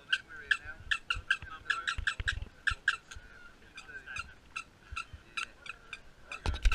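A bird calling in a quick series of short, sharp notes, about two or three a second. A louder knock comes near the end.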